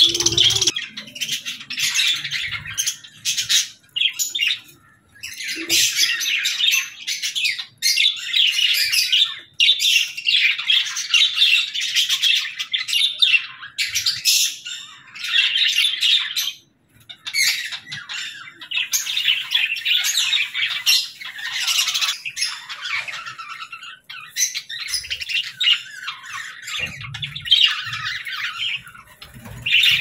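A flock of budgerigars chattering, with warbling chirps and squawks overlapping in dense stretches, and a brief lull about seventeen seconds in.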